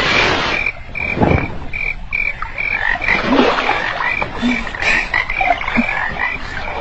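Pond ambience from a cartoon soundtrack: frogs croaking in a steady rhythm, about two to three calls a second, with water splashing near the start and again about three seconds in.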